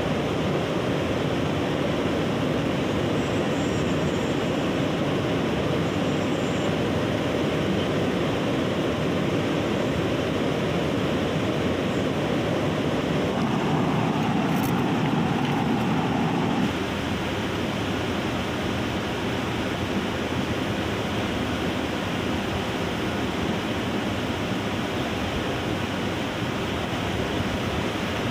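Fast mountain river rushing over rocks: a steady wash of white-water noise, a little quieter in the last third.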